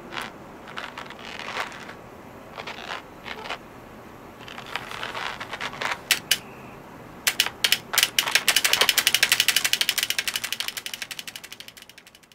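Computer keyboard keys clicking: scattered light clicks and rustles, a few sharp key presses about six seconds in, then a fast, even run of mechanical clicks that fades away near the end.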